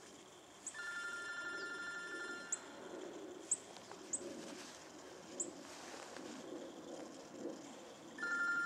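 An electronic two-tone warbling beep lasting about two seconds sounds about a second in and starts again near the end, with short high chirps in between and a low rustle of brush underneath.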